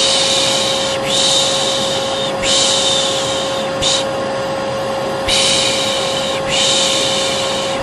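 Repeated 'shh' shushing, long hissing strokes of about a second each with a couple of short ones, over a vacuum cleaner's motor running with a steady hum.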